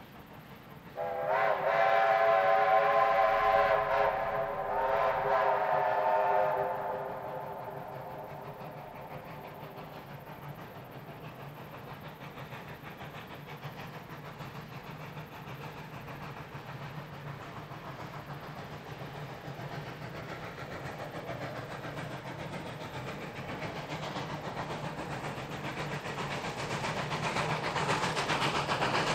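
Chime steam whistle of a narrow-gauge steam locomotive blowing two long blasts, the first about three seconds and the second about two. Then a steady low running sound of the train and its rolling stock grows louder near the end.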